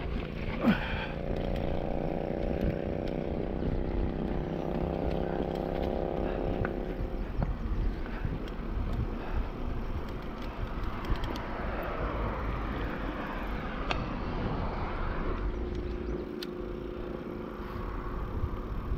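Mountain bike rolling down a dirt trail, tyres on dirt with wind on the microphone. A steady hum falls slightly in pitch over the first several seconds.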